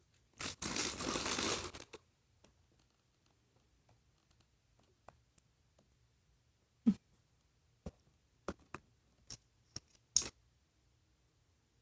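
Plastic packaging crinkling and rustling for about a second and a half near the start, then a scatter of light clicks and taps as small packaged pieces are handled and sorted.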